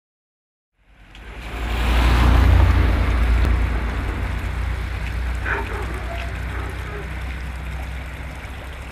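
A car drives past and fades away down the road, a low rumble that swells quickly about a second in and then dies down slowly, over the steady rush of water flowing in a roadside ditch.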